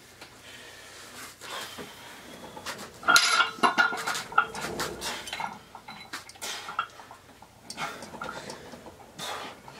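Metal clinking and rattling from a cable row machine during seated cable rows with a V-handle: the handle and its snap clip knock against the cable hardware in short irregular clinks. The loudest cluster comes about three seconds in.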